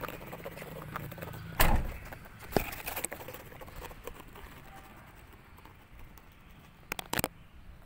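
Sliding side door of a Nissan Evalia van shut with one heavy thump about a second and a half in, followed by a couple of lighter knocks, and two sharp clicks near the end.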